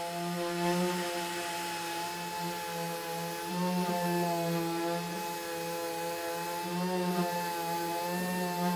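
Random orbital sander running steadily as it sands a gelcoat-faced GRP (fibreglass composite) panel: a continuous motor whine whose pitch wavers slightly.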